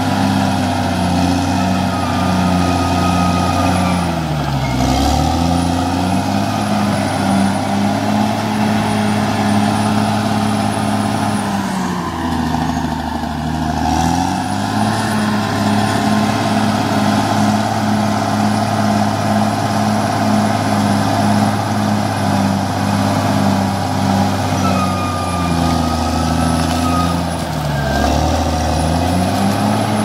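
CAT D6R XL crawler bulldozer's diesel engine running hard while dozing soil; the engine speed sags and recovers three times, at about 4, 12 and 27 seconds in, with a faint high whine above.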